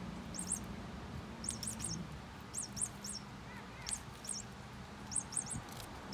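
A small bird chirping repeatedly: short, high chirps in quick groups of two or three, about once a second, with a faint low steady hum underneath in the first half.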